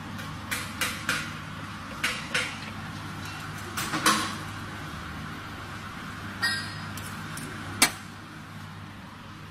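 Steel bracket knocking and clinking against a van's chassis rail as it is positioned and clamped with locking pliers: about ten sharp metallic clicks, with a short scrape about six and a half seconds in and the loudest snap near the end. A steady low hum runs underneath.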